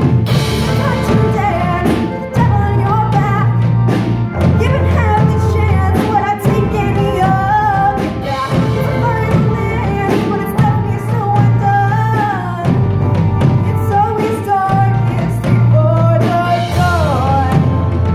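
Live rock band playing a song with a singer: a sung melody over electric guitars, a bass line that moves every couple of seconds, and a drum kit keeping a steady beat.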